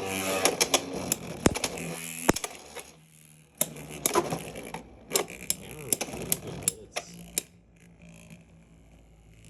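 Two Beyblade X spinning tops battling in a stadium: a run of sharp plastic-and-metal clacks as they collide, with a short lull about three seconds in. The clashes stop about two-thirds of the way through, leaving only faint spinning.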